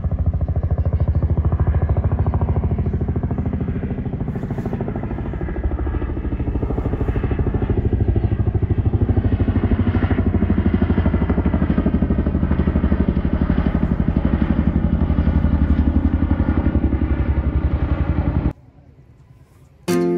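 Loud tandem-rotor helicopter flying overhead, its rotors giving a rapid, steady chopping beat over the engine. The sound cuts off near the end.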